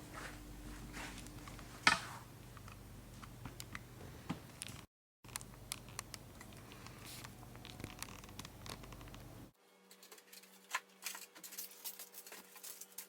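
Faint handling noises: scattered clicks, scratches and scrapes, with one sharper knock about two seconds in. A faint steady hum appears near the end.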